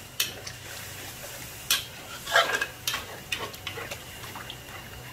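Metal spatula stirring and scraping in an aluminium wok, mixing fermented bean curd into water, with irregular scrapes and knocks and the loudest about halfway through.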